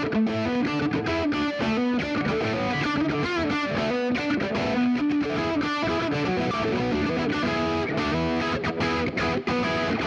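Rock music with distorted electric guitar over a steady drum beat.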